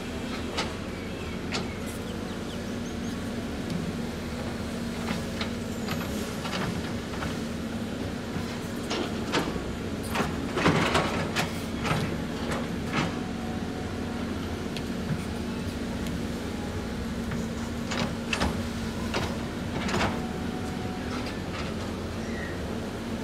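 CAT 320D excavator's diesel engine running steadily, with the steel bucket clanking and scraping against rock as it digs; the loudest burst of clatter comes about halfway through.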